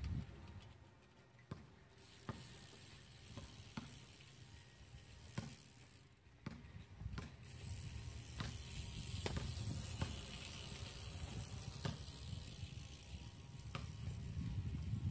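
BMX bike's rear hub freewheel ticking in scattered, irregular clicks as the bike rolls away. From about seven seconds in, a steady hiss and low rumble grow louder underneath.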